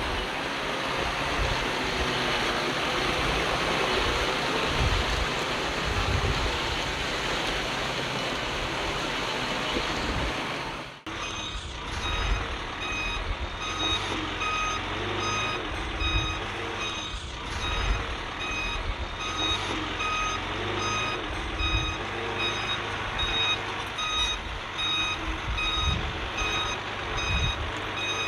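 Heavy earthmoving machinery running with a steady rushing noise; after an abrupt cut about 11 seconds in, a reversing alarm beeps in an even repeating pattern over a diesel engine.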